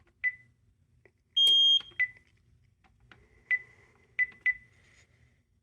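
Alarm panel keypad beeping as buttons are pressed to reset it: short beeps at uneven intervals, with one louder, higher and longer beep about a second and a half in.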